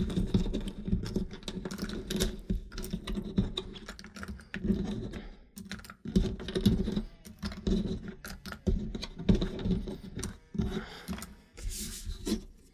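Thick cardboard game tokens clicking and clattering as they are dropped by hand into a small cardboard game box, many irregular clicks in quick succession.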